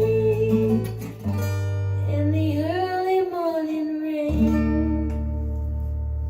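The end of a folk song on acoustic guitar. A singing voice holds out the last line's final note over the strummed guitar, and then a closing chord rings out with steady bass notes.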